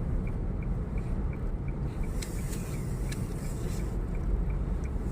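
Steady low rumble of a moving vehicle, with a faint, even ticking about three times a second and a few light clicks.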